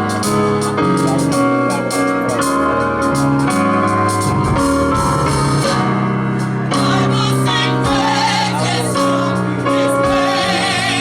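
Live gospel music: keyboard chords over a steady beat, with singing voices wavering in vibrato coming in about two-thirds of the way through.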